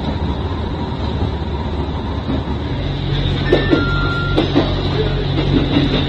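Running noise of a KiHa 75 diesel railcar, heard from inside the passenger car: a steady rumble from wheels and engine. A low steady hum comes in about halfway through, with a brief thin high whine and a few light clicks around the middle.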